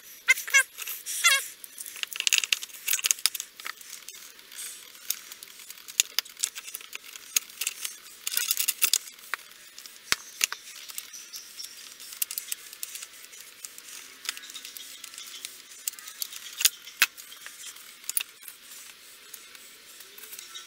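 Differential gears and axle shafts of a Peerless MST transaxle being handled and fitted by hand: scattered metal clicks and clinks with some rustling, and a few brief squeaks near the start.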